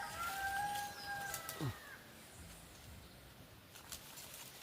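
A rooster crowing: a long held note that drops away sharply in pitch under two seconds in.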